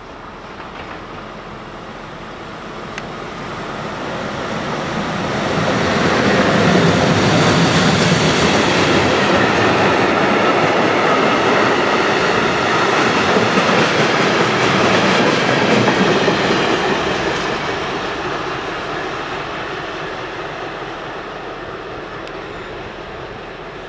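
Freight train hauled by two ÖBB electric locomotives, a class 1116 Taurus and a class 1144, passing close by on the track. The rumble of wheels on rail builds as it comes in, is loudest for about ten seconds as the wagons roll past, then fades as the train pulls away.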